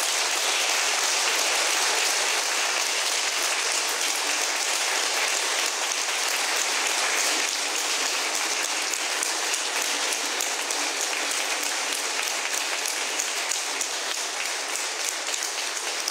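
Large audience applauding: a long, steady round of clapping that eases off slightly toward the end.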